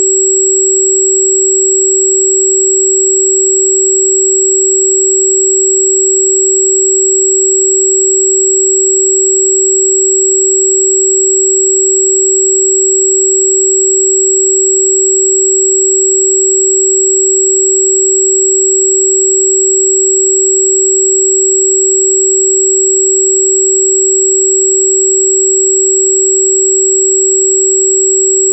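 Steady electronic sine tone at about 383 Hz, held unchanged: the 382.605 Hz tone listed for Di Gu Pi (wolfberry root bark).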